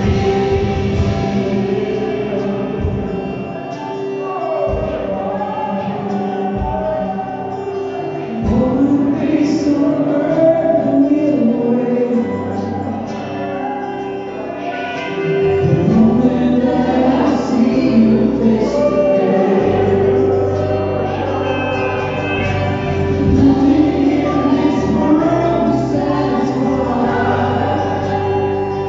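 Live church praise band playing a worship song: a group of singers singing together over acoustic guitar and keyboard, the music swelling louder twice during the song.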